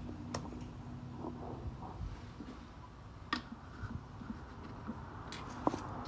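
Three short, light plastic clicks spaced a few seconds apart as the cap of a brake master cylinder reservoir is closed and a brake fluid bottle is handled, over a low steady hum.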